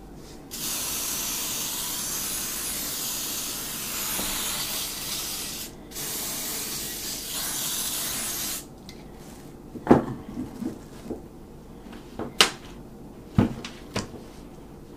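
Aerosol cooking spray hissing from the can in two long bursts, about five seconds and then about two and a half seconds, as raw pork shoulder is coated. A few light knocks follow near the end as the roast is handled on the sheet pan.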